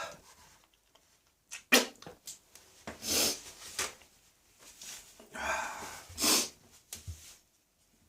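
A person coughing and gagging, as when something has gone down the wrong way: a sharp cough a little under two seconds in, then two longer breathy hacks, the second around five to six and a half seconds in.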